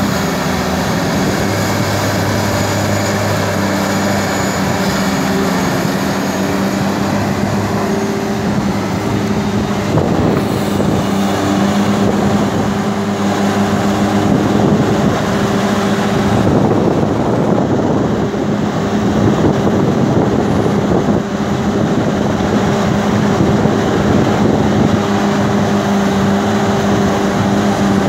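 Tata Hitachi EX600 hydraulic excavator's diesel engine running steadily under load as it works its boom and bucket, a constant droning hum with a low steady note.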